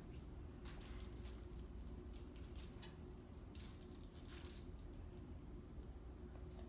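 Faint scattered light clicks and taps, with a brief thin trickle of water poured from a plastic measuring jug into a small measuring cup about four seconds in.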